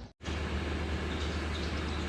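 A machine running with a steady low hum that comes in abruptly after a brief dropout.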